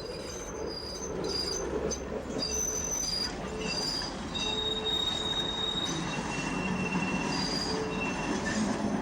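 Tram running on rails: a steady low rumble with short, high, steady-pitched wheel squeals coming and going again and again.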